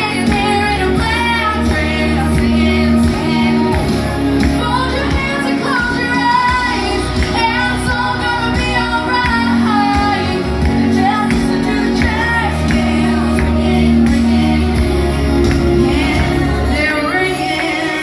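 A teenage girl singing karaoke into a handheld microphone over a recorded backing track with a steady bass line. The bass of the backing track drops out about a second before the end while her voice carries on.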